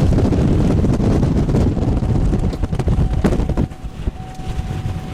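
Strong tornado wind buffeting the vehicle and the microphone as a heavy low rumble, with a few sharp knocks past the middle. The rumble eases somewhat after about three and a half seconds.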